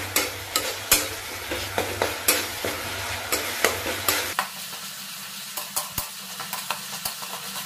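Onion-tomato masala with ginger-garlic paste sizzling in a metal kadai, fried for a minute to cook off the paste's raw smell, while a spatula stirs and scrapes it with frequent irregular clicks against the pan. A low hum underneath steps up in pitch about halfway through.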